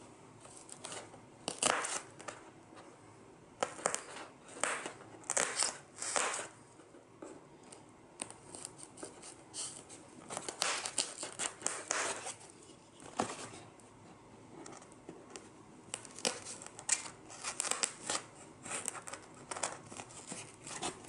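Tanto knife blade pushed down through a dense, PVC-like foam insert, cutting relief lines: irregular short cutting and tearing strokes, in several runs with pauses between.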